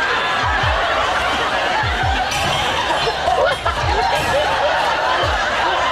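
Several people laughing helplessly together, snickering and chuckling, over a low double thud that repeats about every second and a half.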